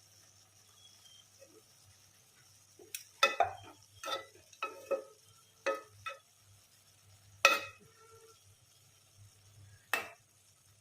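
A metal ladle knocking against a cooking pot as rice is spooned in and layered: about nine short, sharp clinks with a brief ring, spaced irregularly, starting a few seconds in.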